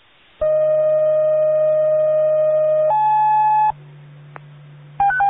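Fire dispatch paging tones over a radio: a steady tone for about two and a half seconds, then a higher tone for under a second, then radio hiss with a single click. Near the end a rapid high-low alternating alert tone begins.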